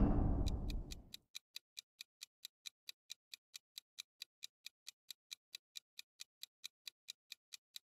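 A deep, low hit that fades away over the first second, followed by a steady clock-tick sound effect for a countdown timer, about four ticks a second.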